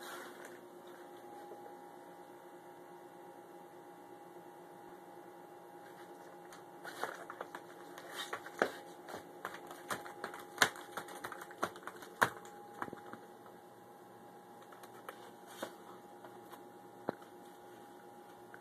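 A cat clawing and scrabbling at a corrugated cardboard scratcher: irregular sharp clicks and scrapes, busiest in the middle, over a steady low hum.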